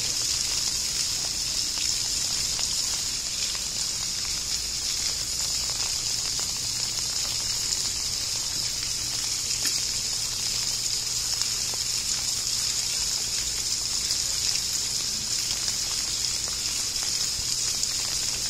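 Water gushing steadily into a pool, a constant hiss with a low steady hum beneath.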